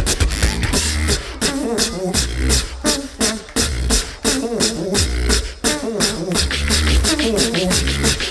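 Beatbox duo performing live: low bass notes held in pulses under rapid sharp snare and hi-hat clicks, with a wavering pitched vocal line over the beat.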